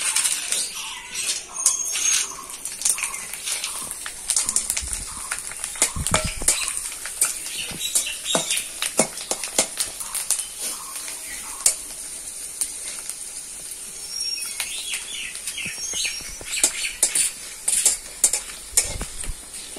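Sun-dried potato chips sizzling steadily in hot oil in a metal kadai, with a metal spatula repeatedly clicking and scraping against the pan as they are turned.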